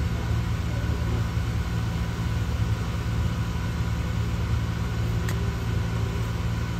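Steady low engine rumble with a few constant low tones, broken by a single sharp click about five seconds in.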